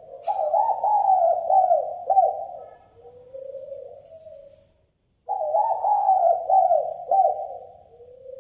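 Spotted dove cooing: two phrases, each a warbling run of notes that trails off into a lower, softer note. The second phrase starts about five seconds in, after a short pause.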